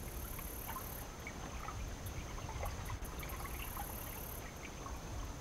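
Water lapping and trickling against a boat's hull, over a steady low rumble, with two short high buzzes: one at the start and one about three and a half seconds in.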